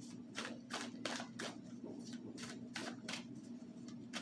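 Tarot cards being handled and shuffled: a run of soft, irregular card clicks and slaps, about three a second.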